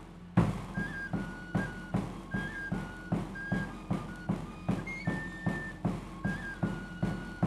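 Background music: a steady drum beat, about two strikes a second, under a high, pure-toned flute or whistle melody stepping between a few held notes.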